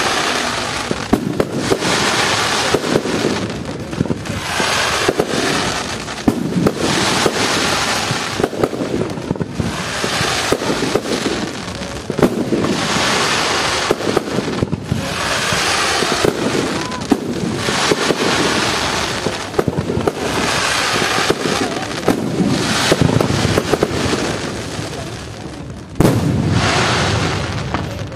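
Aerial fireworks display: a dense, continuous run of bangs and crackling from bursting shells, rising and falling in waves, with a sharp loud bang near the end.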